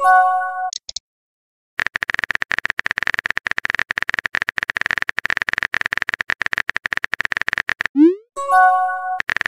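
Messaging-app sound effects: a short rising pop and a chime as a message appears, then about six seconds of rapid typing clicks while a reply is being typed. Near the end comes another rising pop and chime.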